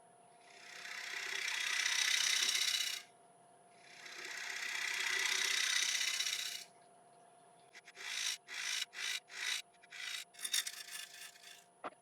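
Bowl gouge cutting a spinning Monterey cypress bowl on a wood lathe: two long hissing cuts of about three seconds each, rising and falling away, then a run of short, quick cuts near the end. This is truing the tenon and foot of a rough-turned bowl that has dried. A steady hum from the running lathe lies underneath.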